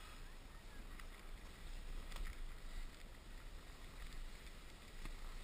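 Wind rumbling on the microphone while skiing downhill, with skis scraping over packed snow and a faint click about two seconds in.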